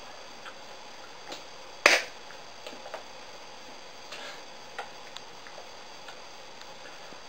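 Hands clapping and tapping against each other while signing: a scatter of light clicks and one sharper slap about two seconds in, over a steady hiss.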